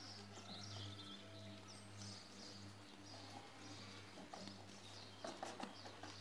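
Quiet farmyard ambience: a steady low hum under faint bird chirps in the first second or so, and a few light knocks from the goats' hooves as they move about, mostly near the end.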